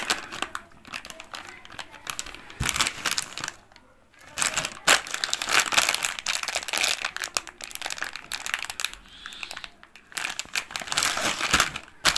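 Plastic Kurkure Masala Munch snack packet crinkling as a hand squeezes, presses and turns it over, in irregular crackly bursts with short lulls about four seconds in and again near ten seconds.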